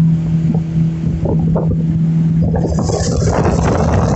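Speedboat motor running steadily at speed, with water and wind rushing past the hull. About two and a half seconds in, the engine tone drops back and the hiss of water along the side grows louder.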